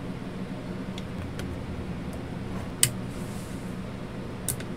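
Clicks from handling the opened Sharp EL-160 calculator: a few faint clicks, one sharp click near the middle, and a couple of key clicks near the end, over a steady low hum.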